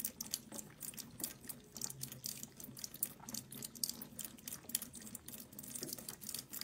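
A thin stream of water running from a kitchen tap into a steel sink, with a quick, irregular run of wet lapping clicks from two cats drinking from the stream.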